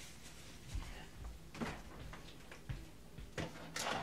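Faint, scattered knocks and rustles of things being handled on a kitchen counter, with a sharper clack near the end.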